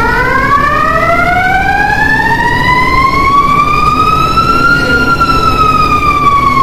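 Engine-room fire alarm siren on a ship, set off by a flame detector being tested with a UV lamp. It wails in one slow rise in pitch over about five seconds, then begins to fall, over a steady low rumble of engine-room machinery.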